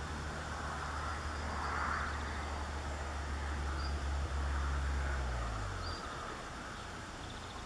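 A low engine drone that drops in pitch and fades out about six seconds in. Near the end the faint, rapidly repeated, insect-like buzzing song of a river warbler comes through.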